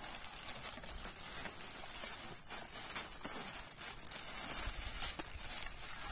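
Clear plastic packaging crinkling and rustling as a paddleboard hand pump and paddle are unwrapped, with many small irregular crackles.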